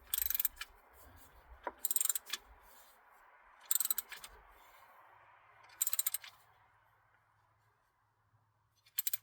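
Ratchet wrench clicking in short runs, five strokes about two seconds apart, as the oil drain plug is turned back in and snugged down.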